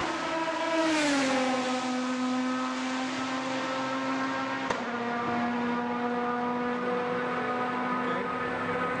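Aston Martin DBR9 GT1 race car's V12 engine passing, its note dropping in pitch about a second in and then holding steady. There is a short click about halfway through.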